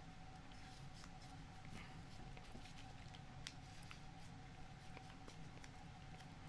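Faint rustling and small ticks of folded paper triangle units being slotted into a 3D modular origami model, over a faint steady hum.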